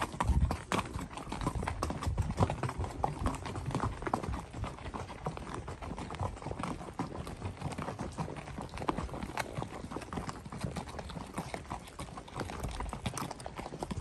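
Hooves of a ridden Criollo horse clip-clopping steadily, many sharp hoof strikes in a row.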